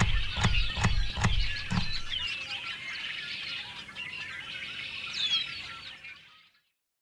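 Birds chirping and twittering in quick short calls, fading out about six seconds in. Over the first two seconds there is a steady beat of knocks, about two a second.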